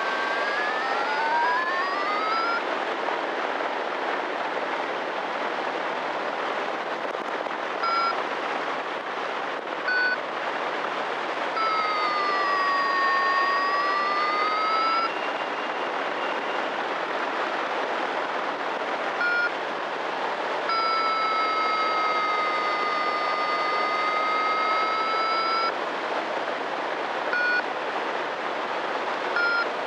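Steady rushing noise of a paramotor in flight, with wind and engine blended into an even roar. Electronic beeps sound over it: single short beeps every few seconds, and two longer tones of several seconds each whose pitch dips and then rises again.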